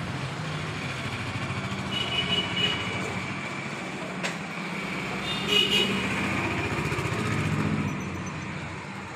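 Street traffic: a motor vehicle engine running close by, steady, with two brief high-pitched tones and a sharp click a little after four seconds. It grows fainter near the end.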